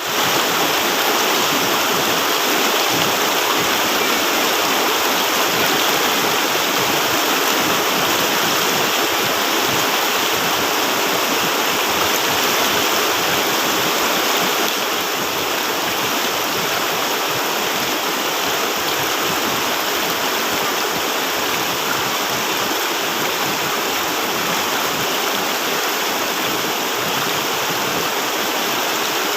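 Fast-flowing river rushing over stones: a steady, full rush of water that drops a little in level about halfway through.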